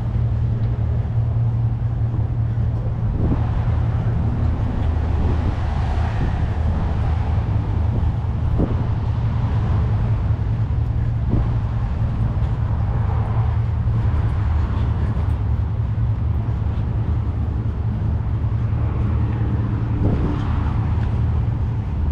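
A steady low engine hum that holds an even pitch throughout, with faint distant voices and a few soft knocks over it.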